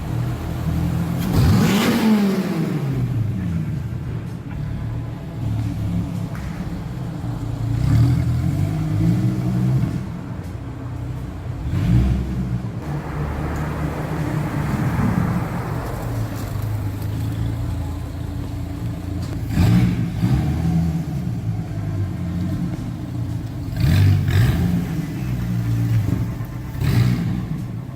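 2014 Dodge Viper GTS's 8.4-litre V10 on its stock exhaust, idling and revved repeatedly; the pitch climbs and falls back with each of about half a dozen blips.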